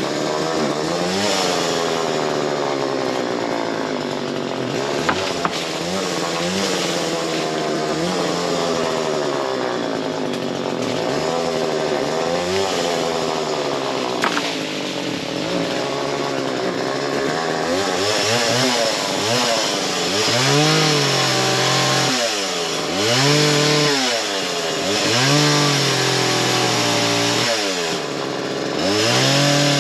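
Small gas chainsaw cutting through a fallen tree trunk. The engine's pitch repeatedly drops as the chain bogs in the wood and climbs back as it is eased or freed, with these dips coming more often in the second half.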